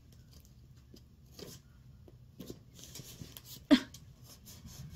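Hands working at a tightly taped package: faint rustling and scraping with small taps, and one sharp knock a little after three and a half seconds in.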